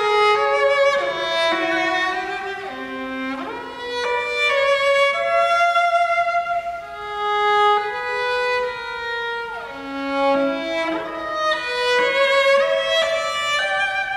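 Solo cello, bowed, playing sustained notes high in its range, linked by sweeping slides in pitch.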